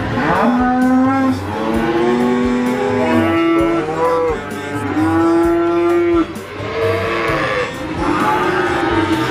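Cattle mooing again and again in long, held calls, with background music underneath.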